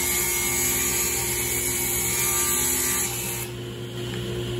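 Table saw ripping a strip of plywood: the blade cuts steadily, and about three seconds in the cut ends and the saw runs on freely, quieter.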